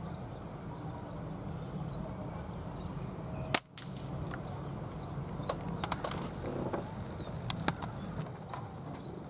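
An air rifle fires once, a single sharp crack about three and a half seconds in, followed a couple of seconds later by a scatter of light clicks and ticks.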